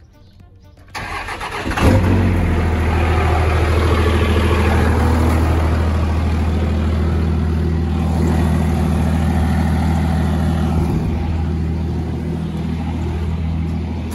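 A vehicle engine cranks for under a second, catches with a sharp burst, then settles into a steady idle.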